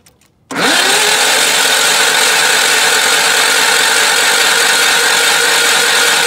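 IH Cub Cadet 982's Onan twin-cylinder engine turning over on the starter with its spark plugs out: a steady, even whir that spins up in pitch about half a second in and then holds level. The engine cranks freely, not seized, which is a good sign.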